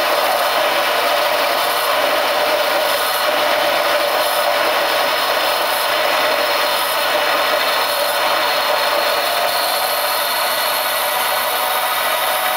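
Micro lathe running steadily while machining a small piston for a model diesel engine: an even mechanical hiss with a steady motor whine under it.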